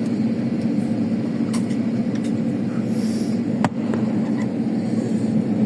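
Steady drone of an airliner cabin, engine and airflow noise, at an even level, with a few small clicks and one sharper click a little past halfway.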